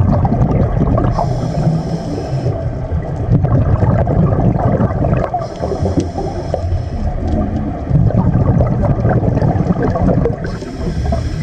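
Water churning and gurgling over a heavy, continuous low rumble. A higher hiss comes in three times, for about a second each.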